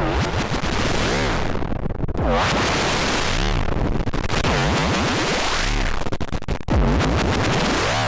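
Harsh, glitchy electronic 'broken TV' sound effect: dense synthesized noise with warbling pitch sweeps that rise and fall about once a second, and a brief cut-out about two-thirds of the way through.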